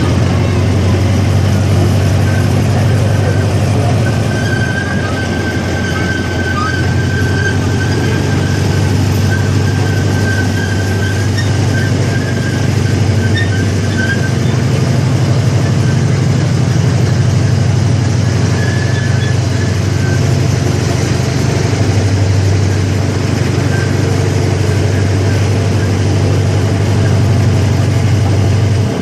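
Steady low drone of the safari ride train's engine as the train runs.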